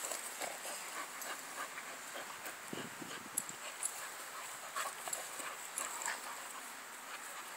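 Dogs at rough play: faint scuffling and small dog noises, with a short low dog sound about three seconds in.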